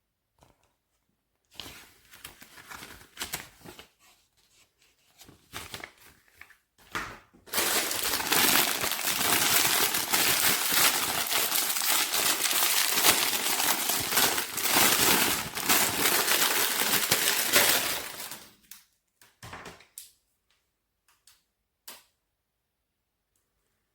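Crinkling and crackling handling noise: scattered light crackles at first, then dense, steady crinkling for about ten seconds, ending in a few clicks.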